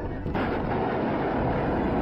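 Loud, steady rushing rumble of vehicle road and wind noise on dash-cam audio, cutting in suddenly about a third of a second in.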